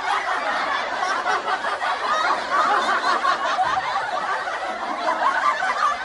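Laughter sound effect: overlapping voices snickering and chuckling in a dense, unbroken stream.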